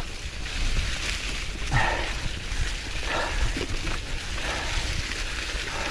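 Canyon Grizl gravel bike, fully rigid, rolling down a rooty forest trail covered in dry fallen leaves: steady tyre and wind rumble with the bike rattling over the ground. A few short bursts of hard breathing from the rider break in, about two and three seconds in.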